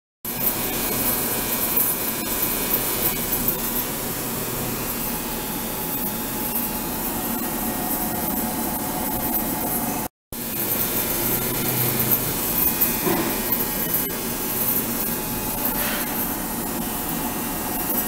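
Ultrasonic cleaning tank running: a steady, harsh hiss from the transducer driving cavitation in the water. It breaks off for a moment about ten seconds in.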